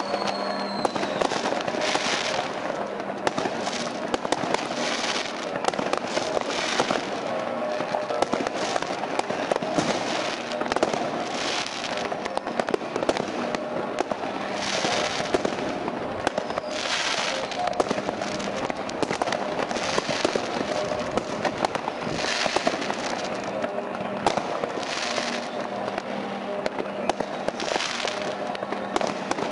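Fireworks going off thickly all around: a continuous din of firecrackers crackling and rockets banging, with louder bursts every second or two and a short falling whistle near the start.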